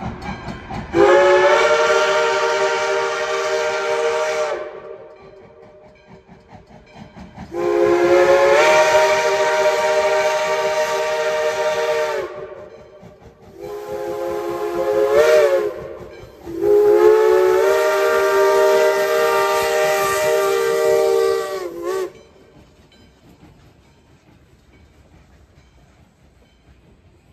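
Steam whistle of 1907 Baldwin 0-6-0 locomotive No. 58 blowing four multi-toned blasts, long, long, short, long, the standard signal for a road grade crossing. After the last blast the train is heard more quietly as it runs past.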